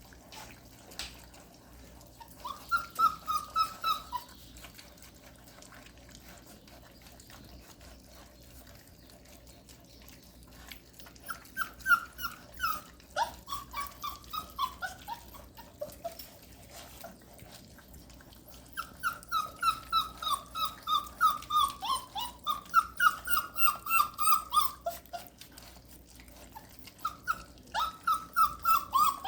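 Five-week-old puppies whining in runs of short, high, falling yelps, several a second, coming in bursts with quiet gaps between.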